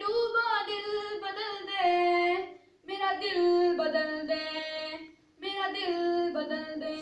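A boy singing a hamd, a devotional Urdu poem in praise of God, solo and unaccompanied, in long held melodic phrases with two short breaks for breath.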